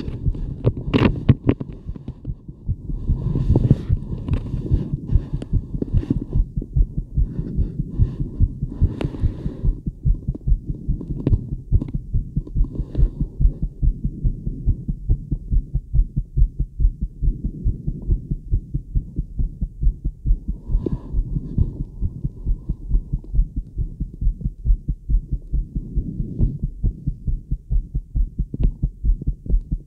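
A woman's fast heartbeat heard through a Littmann acoustic stethoscope pressed to her chest: a quick, even run of low thumps. There are bursts of scratchy noise over the first ten seconds.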